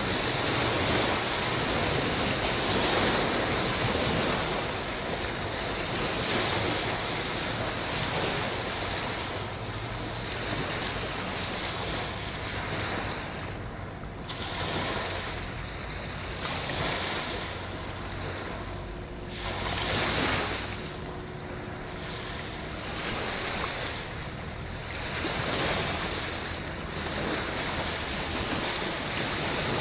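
Wind buffeting the microphone over choppy river water, swelling and easing in gusts every few seconds, with a faint steady low hum underneath.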